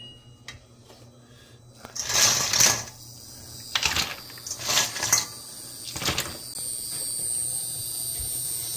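An induction hob's touch panel beeps once; then octopus pieces are dropped into a small stainless-steel saucepan of water, splashing in four loud bursts. After that a steady high whine with a hiss sets in as the hob heats the pan.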